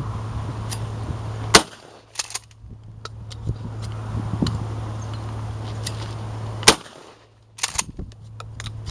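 Two shotgun shots about five seconds apart, fired at thrown clay targets, each followed a moment later by a fainter crack or two.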